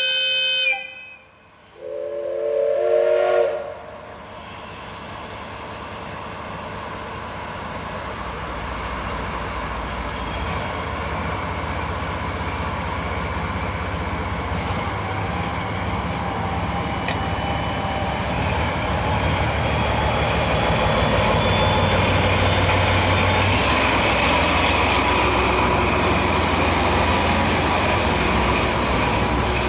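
A DE10 diesel-hydraulic locomotive sounds its horn once for about two seconds. Its V12 diesel engine then runs and grows louder as it pulls away, hauling passenger coaches past.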